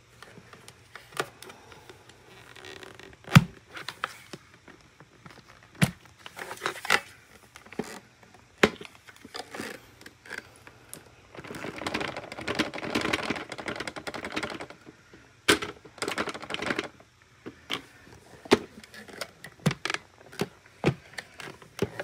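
Plastic clicks and knocks of a Hoover upright's clear dust canister being handled and emptied, with the debris inside pouring out onto a rug for about three seconds in the middle.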